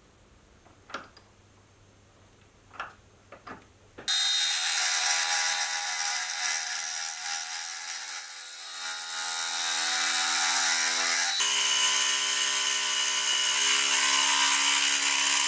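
A milling machine's face mill cutting across a mild steel block: a loud, steady machining noise with a whine running under it, starting suddenly about four seconds in and changing slightly partway through. Before it, a few faint clicks as the steel block is handled.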